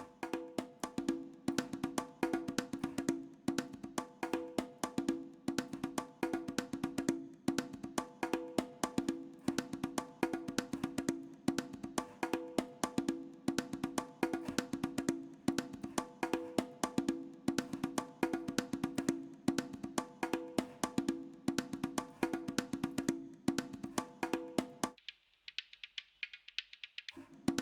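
Programmed congas playing a steady, fast rhythm through the Waves SSL EV2 channel strip plugin, with its dynamics pushed. About 25 seconds in, the low end drops away for a couple of seconds, leaving only a thin, high-pitched version of the pattern, and then the full sound returns.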